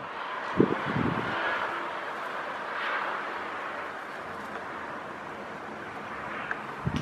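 Distant town traffic heard as a steady hiss, with wind gusting against the microphone in short low thumps about half a second and a second in and again near the end.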